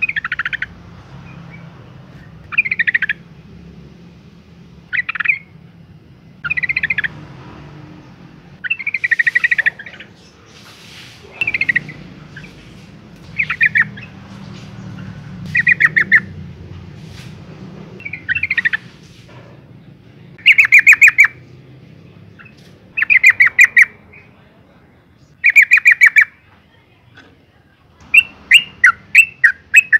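Yellow-vented bulbul calling in short chattering phrases about every two seconds, breaking into a fast run of short repeated notes near the end. The uploader presents it as a female in breeding condition calling for a male.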